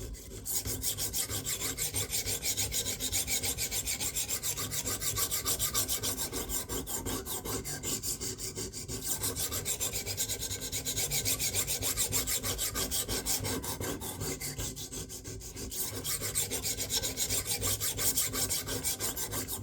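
A sharpening stone on a KME guided rod rasping along the edge of a Bubba Blades fillet knife in quick, even back-and-forth strokes, with a couple of brief pauses. This is the work of raising a burr along the edge.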